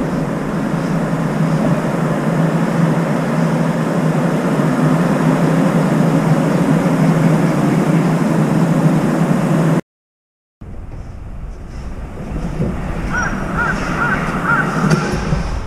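Steady outdoor hum of traffic and wind for about ten seconds, then, after a brief cut to silence, a quieter background in which a crow gives a quick run of about five short caws as it comes in to land, followed by a single knock near the end.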